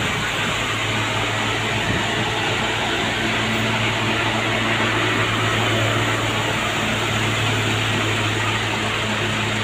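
Diesel truck engine idling steadily: a constant low hum over an even hiss.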